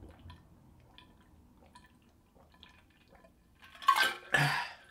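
A person drinking from an insulated bottle: soft swallowing gulps about once a second, then two loud breaths near the end.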